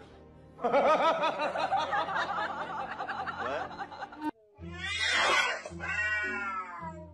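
Added laughter, many overlapping voices laughing, for about three seconds; it cuts off suddenly and gives way to background music with a steady low bass line and a falling tone.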